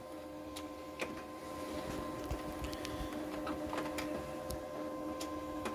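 Document scanner's automatic sheet feeder running, its motor humming steadily as it draws the sheets through one after another, with scattered clicks of the paper-handling mechanism.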